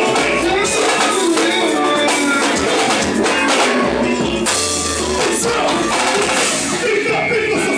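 A pagode band playing live: loud, percussion-driven music with drums and a singer's voice.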